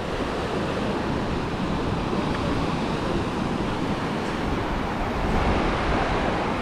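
Small sea waves breaking and washing up on a sandy beach: a steady rushing wash that swells slightly near the end.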